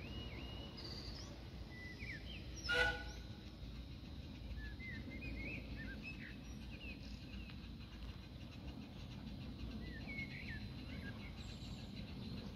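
Small birds chirping and twittering in short scattered calls over a steady low outdoor rumble, with one brief louder sound about three seconds in.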